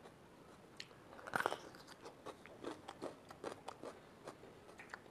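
Bite into a raw yellow bell pepper (capsicum): one crisp crunch about a second and a half in, then chewing with short crunches a few times a second.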